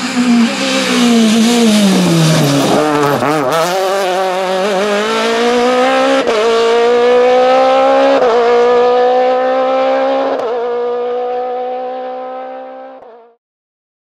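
Citroën rally car engine with its revs falling as it slows for a bend, then accelerating away. The revs climb through three quick upshifts, each a sudden drop in pitch, and the sound fades as the car pulls away before cutting off abruptly near the end.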